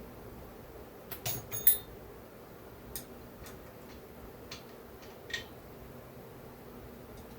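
Small metal chainsaw parts and tools being handled and set down on a workbench: a quick run of sharp clicks and clinks about a second in, then a few single ticks, over a steady low hum.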